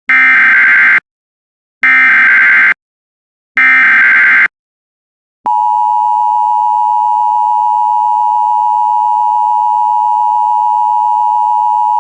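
Emergency Alert System SAME header: three harsh digital data bursts of about a second each, with short gaps between them. About a second after the last burst, the steady two-tone EAS attention signal starts and holds, announcing a tornado warning.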